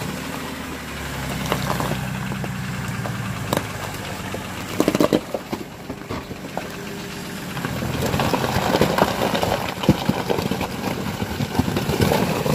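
Nissan Patrol's engine running steadily at low revs, with scattered sharp cracks and knocks; it grows louder and rougher about eight seconds in.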